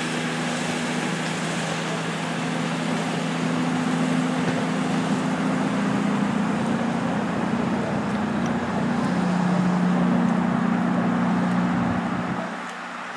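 CrossCountry Voyager diesel multiple unit pulling away from a station under power, its underfloor diesel engines making a steady drone of several engine notes. One note moves higher about nine seconds in, and the sound falls off sharply near the end as the train draws away.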